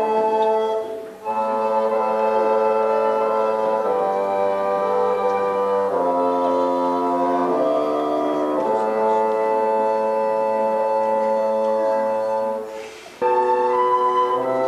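Small woodwind ensemble playing slow, held chords, with two short breaks between phrases: one about a second in and one near the end.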